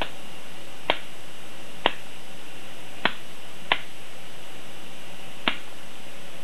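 Lego rubber-band Vulcan mini gun firing: six sharp snaps at uneven intervals of about a second as rubber bands release one by one from its rotating barrel. Under them runs the faint steady whine of its small electric motor and worm-gear gearbox.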